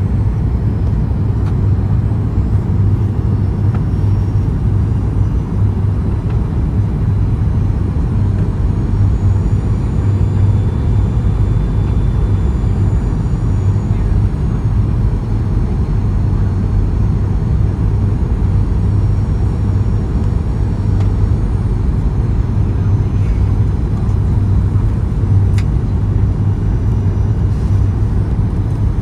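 Steady cabin noise of a Boeing 737-900ER in flight or on the ground: a deep, even rumble from its CFM56-7B engines and airflow, with faint high whining tones above it.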